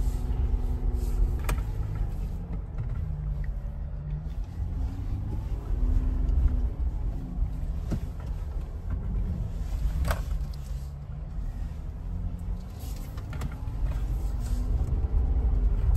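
Mercedes-Benz G-Class heard from inside the cabin while driving on a rough forest dirt track: a low engine and road rumble whose engine note rises and falls, with a few sharp knocks from the track.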